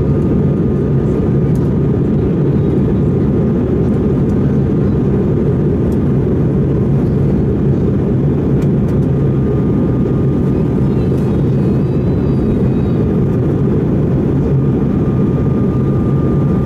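Steady cabin noise of an Airbus A220-300 in flight, heard from a window seat: the low, even rush of its Pratt & Whitney PW1500G geared turbofans and the airflow, with a faint steady whine above it.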